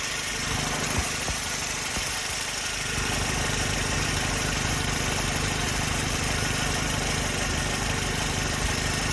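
2001 Saturn L-series engine idling steadily, with the steady rush of its electric radiator cooling fans running; about three seconds in, the low hum gets a little louder.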